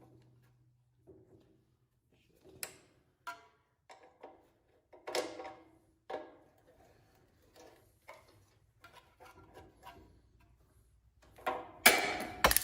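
Scattered metallic clinks, taps and knocks of hand tools and engine parts being handled, some with a short ring, and a louder clatter near the end. A low steady hum fades out about a second in.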